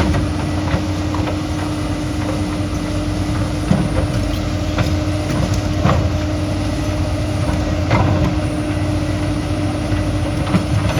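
Diesel engine of heavy earthmoving machinery running steadily, with scattered sharp knocks every second or two.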